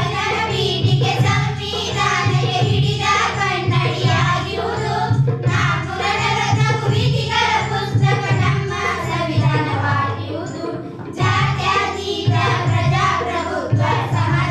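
A group of children singing a Kannada patriotic song together, with instrumental accompaniment. The singing runs in phrases, with a short break between lines about ten seconds in.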